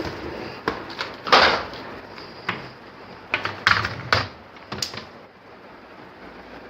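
A keyboard being unwrapped from its bubble-wrap packaging and handled: a run of crinkles, rustles and light knocks over the first five seconds, then quieter.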